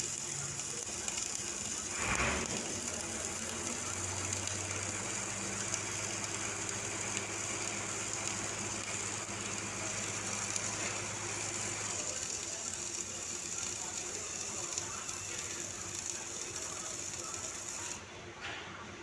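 Gas-shielded flux-cored arc welding: the arc crackles and sizzles steadily, with a low hum partway through, and cuts off suddenly about a second before the end.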